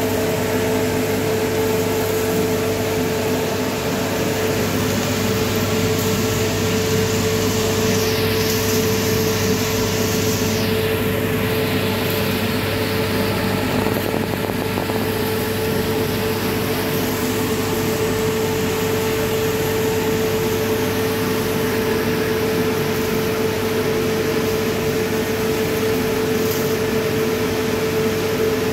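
Drum coffee roaster's cooling tray running as freshly roasted beans are stirred to cool them. The stirring arms sweep the beans round over a steady fan and motor hum with a constant mid-pitched tone.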